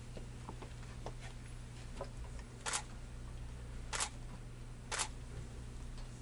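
A DSLR camera's shutter firing three times, short sharp clicks spaced about a second apart, over faint room hum.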